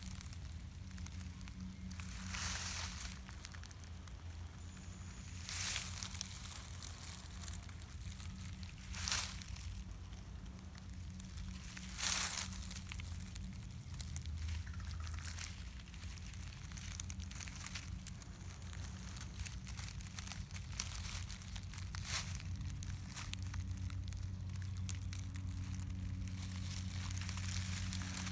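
Intermittent crinkling rustles, about half a dozen brief swells a few seconds apart, over a steady low hum.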